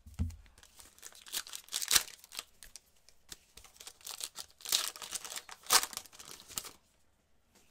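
Foil wrapper of a 2019-20 Donruss Optic basketball card pack crinkling and tearing as it is ripped open by hand, in a run of crackly bursts that stop near the end.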